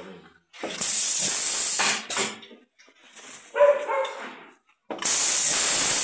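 Two loud bursts of rushing hiss, each a little over a second long, about a second in and again near the end.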